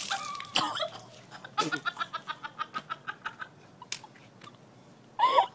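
A person retching and spewing milk onto pavement, with a short noisy splash at the start, then a quick run of high-pitched laughing pulses, about six a second, lasting under two seconds. A brief rising-and-falling cry near the end.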